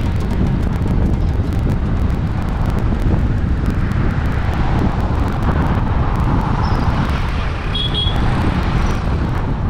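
Road noise from a moving vehicle in traffic: a steady rumble of tyres and engine with wind buffeting the microphone.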